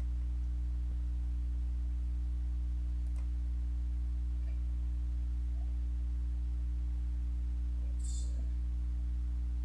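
Steady low electrical hum: a mains-frequency drone with a stack of overtones, unchanging throughout, with a faint short hiss about eight seconds in.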